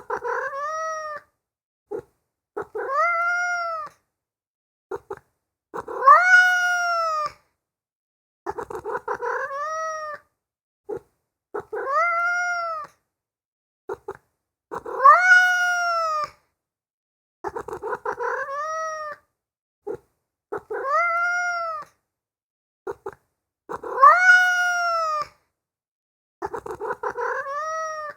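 Domestic cat meowing over and over, about nine drawn-out meows, each rising then falling in pitch and spaced about three seconds apart, with the loudest ones coming every nine seconds or so.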